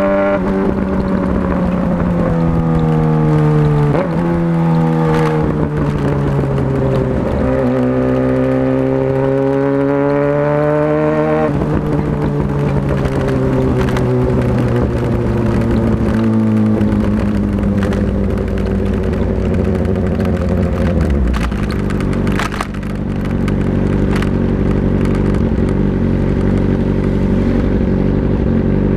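Motorcycle engine pulling hard through the gears, its pitch climbing and dropping back at each upshift. After about a dozen seconds the throttle comes off and the engine winds down, settling to a steady lower note near the end.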